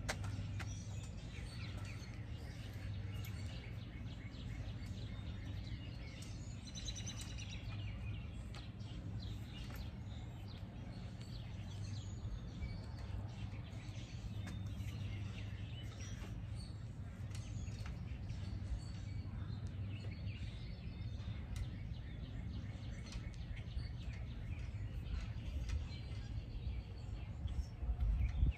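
Outdoor ambience: a steady low hum with birds chirping now and then, and a low thud near the end.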